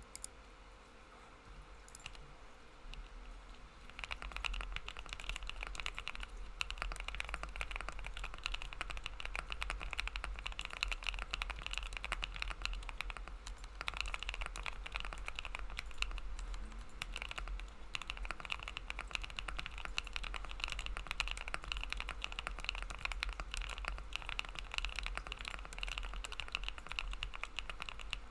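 Fast typing on a custom 60% mechanical keyboard, the Freakey60 prototype with Gateron Creamy Oil linear switches, a PLA half plate and case foam fitted. A few scattered keystrokes at first, then steady, dense typing from about four seconds in, pausing briefly now and then.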